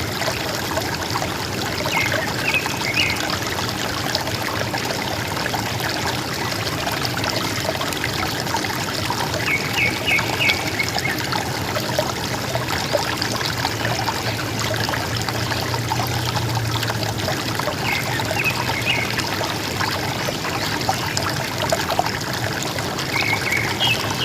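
River water gurgling and trickling steadily, with a bird giving a short call of a few quick high notes four times, about every eight seconds.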